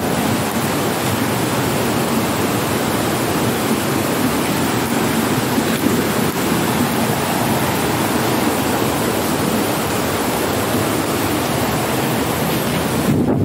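Steady rush of a rocky mountain stream's rapids, a constant loud water noise.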